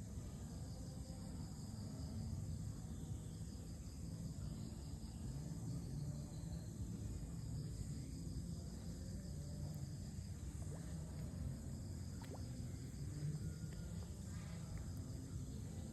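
Steady high-pitched insect chirring over a constant low rumble, with a few faint clicks near the end.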